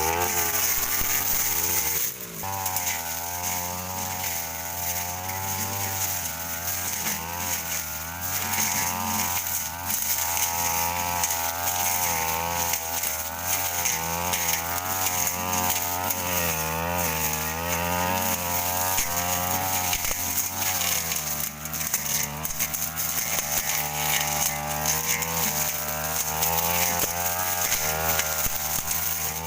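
Stihl two-stroke brush cutter with a Tanika metal blade running hard while slashing dense weeds, its engine pitch wavering up and down as the blade bites into the growth, with a brief drop about two seconds in.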